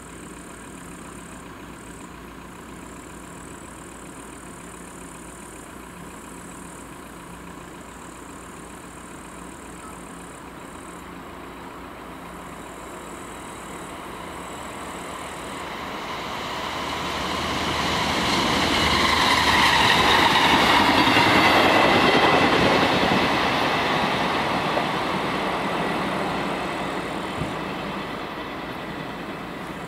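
A train passing over a level crossing, growing louder to a peak about 20 seconds in with a high squealing whine from the wheels, then fading away.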